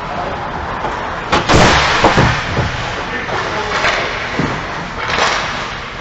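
Ice hockey play in an indoor rink: skates scraping on the ice and sticks clacking, with a sharp crack and several heavy thuds about a second and a half in.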